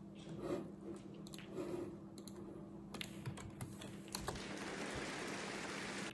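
Scattered sharp clicks, a few at a time. Just after four seconds in, a steady hiss comes in and cuts off suddenly.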